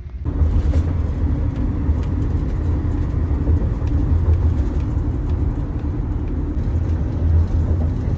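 Steady road and engine noise inside the cabin of a moving Chevrolet: a low rumble with a faint steady hum above it.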